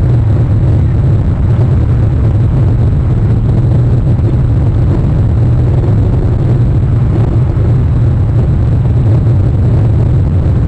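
Rain noise on an outdoor nest camera's microphone: a steady, loud low rumble with an even hiss above it.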